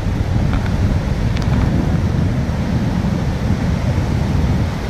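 Strong wind buffeting the microphone in a loud, gusting low rumble, with rough surf washing on the beach underneath.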